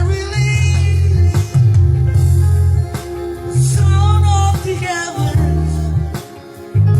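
Worship music: a singing voice with guitar and a strong, steady bass line.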